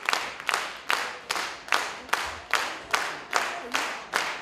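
Audience clapping together in rhythm, about two and a half claps a second, in a reverberant hall.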